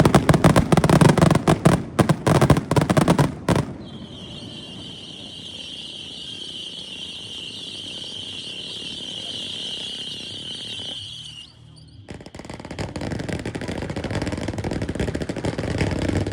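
Fireworks going off in a rapid barrage of bangs and crackles that stops a few seconds in. A steady high-pitched hiss follows for several seconds and cuts off suddenly.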